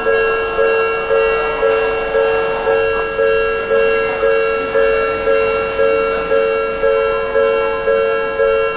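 Japanese level-crossing warning bell ringing 'kan-kan' at a steady pace of about two strokes a second, each stroke a ringing tone that fades before the next.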